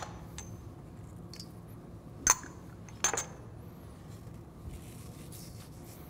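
A few sharp clinks of small ceramic ramekins against a stainless steel mixing bowl as seasonings are tipped in, the two loudest about two and three seconds in.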